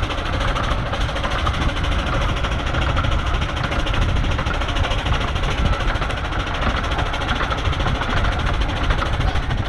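15-inch-gauge steam locomotive BVR No. 8 'John of Gaunt' working hard with a heavy train: rapid exhaust beats over a steady, loud rumble.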